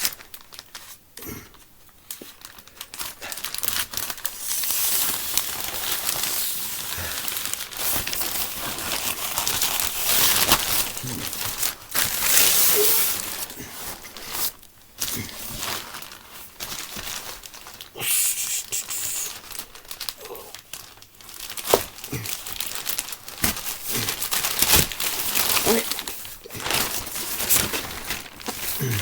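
Crinkling packaging being handled and unwrapped by hand while a delivered parcel is opened, with many short crackles and knocks.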